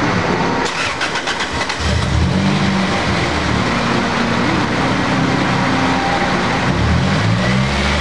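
Toyota Celica four-cylinder engine running with the hood open, its pitch rising and falling twice as it is revved, under a steady rushing noise. The engine is being run to bring back an ignition misfire that the owner suspects comes from a bad coil pack.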